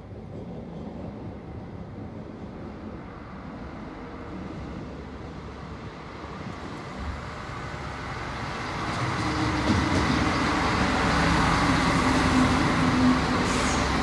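X 73500 diesel railcar approaching along the line and running up to the platform. The engine and rail noise grow steadily louder, rising sharply about eight seconds in, with a low engine hum as the railcar draws close.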